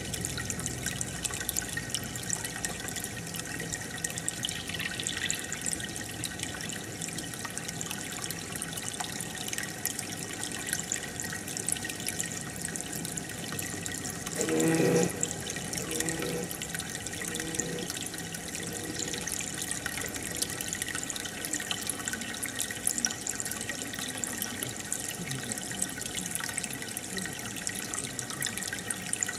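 Aquarium water and air bubbles from an air stone fizzing and splashing steadily at the surface. About halfway through there is a brief, louder pitched sound.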